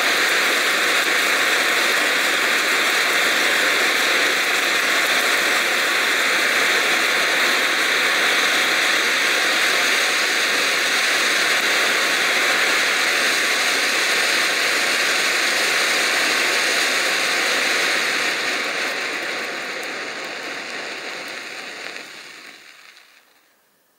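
A 25-year-old red pyrotechnic distress hand flare burning with a steady, loud hiss, fading away over the last few seconds.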